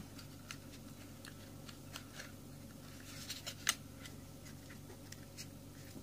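Faint plastic clicks and handling noise as the folding arms of a JY018 mini drone are swung out, with one louder click a little past halfway.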